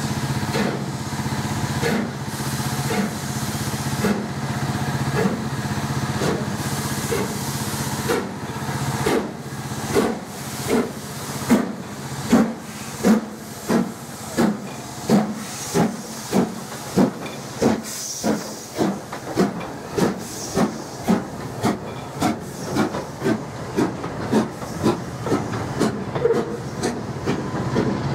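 Stanier Black 5 4-6-0 steam locomotive pulling away with its train. Steam hisses throughout from the open cylinder drain cocks. From about a third of the way in, the exhaust chuffs come through clearly, getting louder and quicker as it gathers speed, to nearly two a second.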